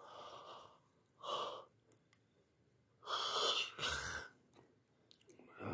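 A person's breath close to the microphone: four breathy hisses with no voice in them, the longest and loudest about three seconds in, ending with a low thump.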